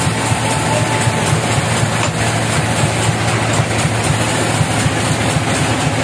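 Log band sawmill machinery running steadily with a loud, even mechanical hum.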